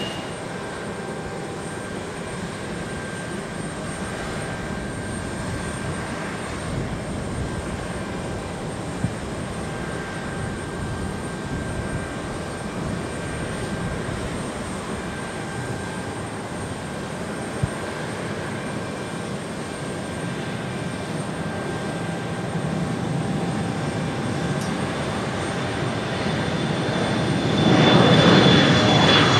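Embraer 175 jet airliner's twin General Electric CF34-8E turbofans at takeoff power during the takeoff roll: a steady distant jet rumble that slowly builds, then turns clearly louder with a high fan whine as the aircraft rolls past near the end.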